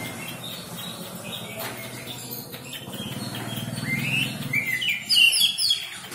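Caged songbirds chirping and whistling, with a louder run of quick sweeping whistled notes near the end, over a low steady hum.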